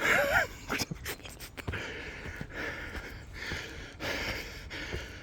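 A man panting and breathing hard while walking uphill, with a short voiced grunt near the start and a few sharp clicks about a second in.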